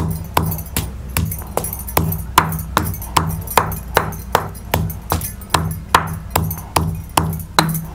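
Stone pestle pounding in a stone mortar (khalbatta), crushing green chillies, garlic and ginger into a coarse paste. Regular dull strikes come about two to three times a second, with music underneath.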